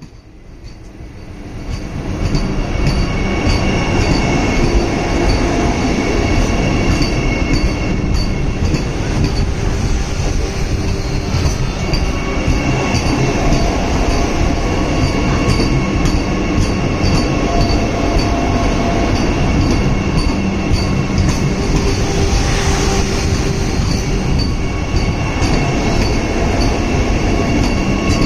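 Vande Bharat electric trainset running on the track, its noise building over the first two seconds and then holding loud and steady. Wheels squeal faintly on the rails over a regular light ticking.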